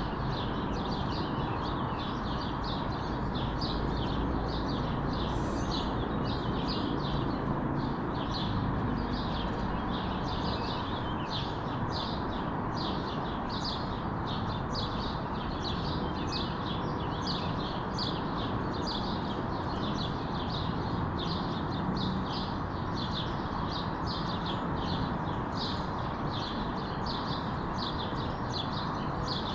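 Songbirds chirping in a steady morning chorus, quick short chirps two or three a second, over a constant low background rumble.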